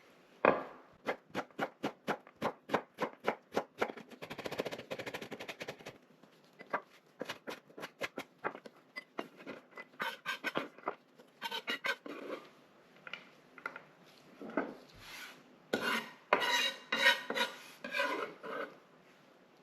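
Kitchen knife chopping onion on a cutting board in quick even strokes, about four a second for the first few seconds, then scraping of the blade across the board and more bursts of chopping.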